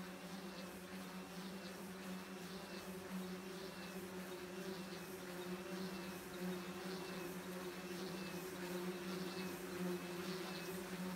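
Electric motors and 12-inch propellers on the wingtips of a home-built rotating-wing multicopter, humming steadily as it hovers with its wings spinning.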